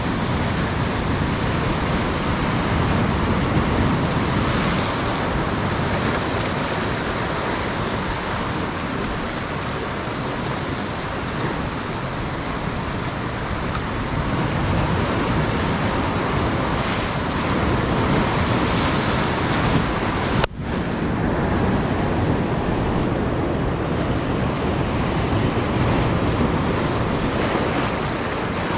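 Ocean surf breaking on a beach, a steady wash of waves that swells and eases, with wind buffeting the microphone. The sound cuts out for an instant about twenty seconds in.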